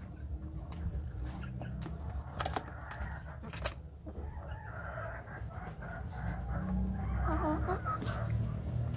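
Chickens clucking softly while they peck at feed, with a few sharp pecking taps on a hard surface. Wavering calls come from about five seconds in onward, over a low rumble.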